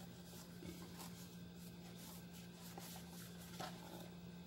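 Faint rustling and light scraping of a small cardboard box and its clear plastic inner tray being handled in cotton gloves, the tray sliding out of the box, with a few soft ticks over a low steady hum.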